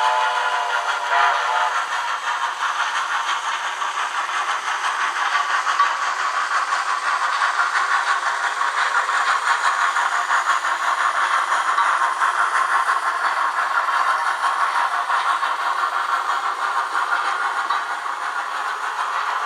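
Ixion J class model steam locomotive running with its DCC sound decoder playing steam chuffing and hiss through a small tinny speaker, with nothing in the low end. Mechanism noise from the model's drive runs underneath, still present after lubrication.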